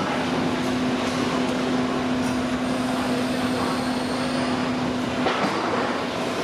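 Steady factory machinery noise with a low hum that stops about five seconds in.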